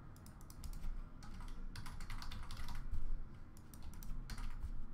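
Typing on a computer keyboard: quick runs of key clicks in several short bursts.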